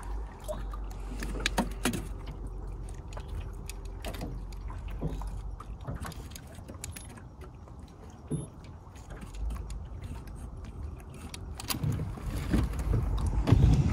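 Scattered clicks, knocks and light rattles of handling in a boat, over a steady low rumble.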